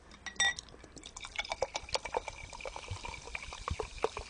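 Drink poured from a large plastic bottle into a glass: a gurgling, splashing trickle from about a second in. A short sharp click comes about half a second in.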